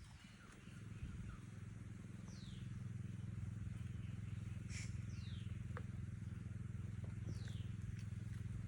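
Short high bird calls, each sliding downward, repeating about every two and a half seconds over a steady low hum.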